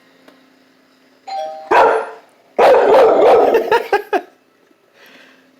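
A two-tone doorbell chime rings about a second in, and a dog at once breaks into loud barking and screaming that lasts about two seconds, a frantic reaction to the bell.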